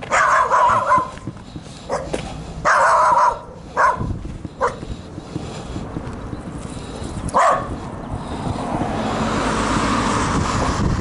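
A dog barking repeatedly, about six barks spread over the first seven or eight seconds, some short and some drawn out. Near the end a vehicle's road noise rises as it approaches.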